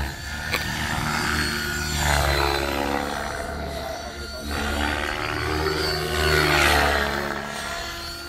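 KDS 600 radio-controlled helicopter flying overhead, its rotor and motor running, the pitch sweeping up and down and the sound swelling and fading twice as it passes back and forth.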